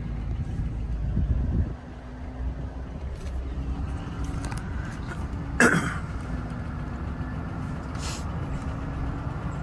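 Low rumble of a pickup truck's engine and tyres, heard from inside the cab as it drives slowly on a dirt road. The rumble is louder for the first second or two, then eases. A single short sharp sound comes about halfway through.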